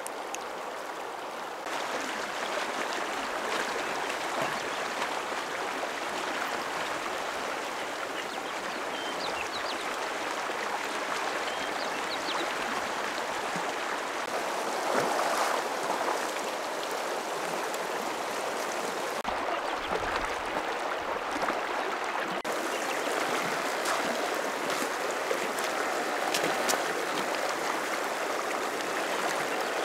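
Shallow, rocky mountain stream rushing steadily over stones, growing louder about two seconds in.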